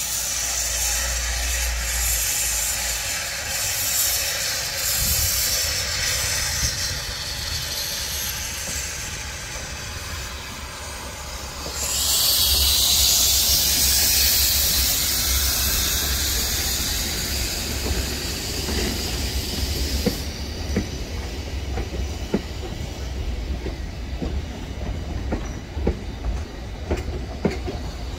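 Narrow-gauge steam locomotive pulling away with steam hissing, the hiss growing louder for several seconds about twelve seconds in as the engine passes close by. The hiss then drops away and the carriages roll past with a low rumble and repeated wheel clicks over the rail joints.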